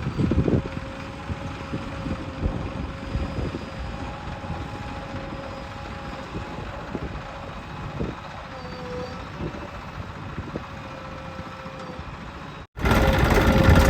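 Diesel engine of a JCB 3DX backhoe loader running under work, with a steady whine from the hydraulics and a few knocks near the start. Near the end the sound drops out for a moment and comes back as a louder engine.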